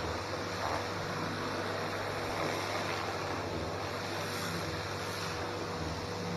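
Stihl pressure washer running: a steady motor hum under the constant hiss of its high-pressure water jet spraying the paving.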